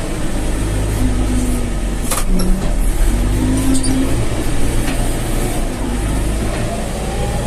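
Backhoe loader's diesel engine running steadily under load as the machine pushes wet earth, its note shifting a little as it works. A sharp knock comes about two seconds in.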